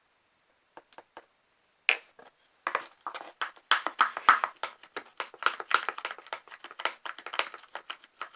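A spoon stirring a sticky PVA-glue slime mixture in a container: irregular wet clicks and squelches, a few at first about a second in, then a dense run from just under three seconds. The glue is starting to activate into slime.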